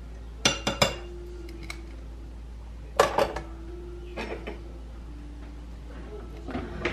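Metal kitchen tongs and a fork clacking against a metal roasting pan: a quick cluster of sharp clinks, another about two and a half seconds later, each leaving a short metallic ring. Lighter clinks follow, with more near the end.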